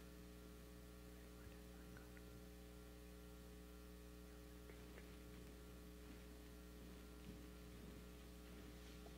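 Near silence: a steady electrical mains hum, with a few faint ticks.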